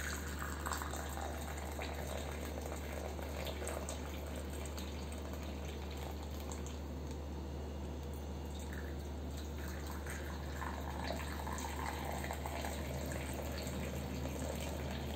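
Hot masala chai poured from a steel pan into ceramic cups: a faint, steady trickle of liquid, over a steady low hum.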